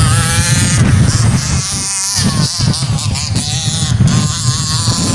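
Rovan 30.5cc two-stroke engine with a tuned pipe in a King Motor Baja 5B RC buggy, buzzing as it revs up and down, the pitch wavering with throttle changes and dipping and zigzagging about two seconds in. Wind rumbles on the microphone underneath.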